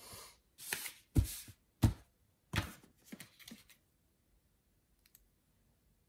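Paper sticker sheets and planner pages being handled and slid across a desk: a run of short rustles and knocks in the first few seconds, the two sharpest about half a second apart, then a faint tick near the end.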